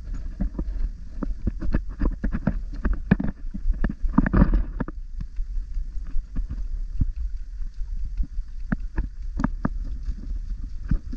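Wind buffeting the camera's microphone as a steady low rumble, with irregular crunching footsteps and scuffs on a dirt and stone hiking trail.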